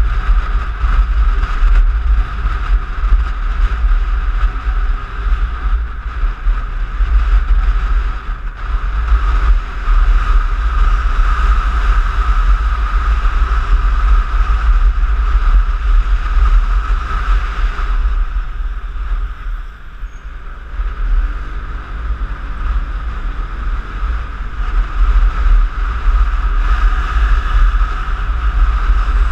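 Piaggio X9 scooter riding in city traffic: heavy wind buffeting on the microphone over the scooter's engine and tyre noise. The sound eases for a moment about twenty seconds in, then builds again.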